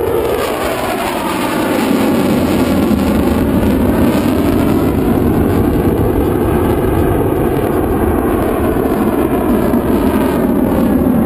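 Jet noise of a Belgian Air Force F-16 and its Pratt & Whitney F100 turbofan during a display pass and pull-up into a vertical climb. A loud, continuous rush that swells about two seconds in, with a slowly sweeping, phasing tone as the jet moves across the sky.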